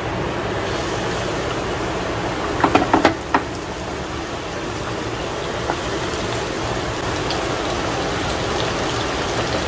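Flour-coated chicken pieces deep-frying in hot oil, a steady sizzle and bubbling. A few brief knocks come close together about three seconds in.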